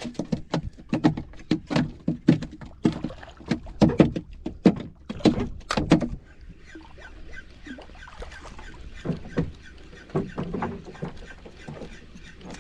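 A hooked fish thrashing at the water surface beside a small boat: a run of sharp splashes and knocks for about six seconds, then a softer stretch of water sound with faint fine ticking.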